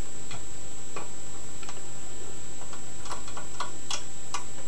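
Light clicks of a steel lock pick working the pins of a five-pin euro cylinder lock, irregular and scattered, coming closer together near the end.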